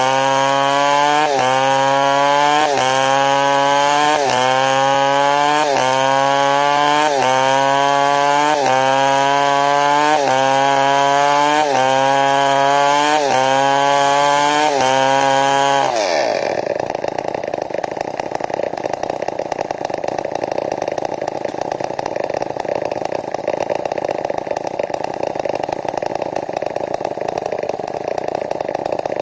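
New West 070 two-stroke chainsaw running at high revs in a cut through timber, its pitch climbing and dipping about every second and a half. About sixteen seconds in, the throttle is released: the pitch drops sharply and the saw settles to a steady idle.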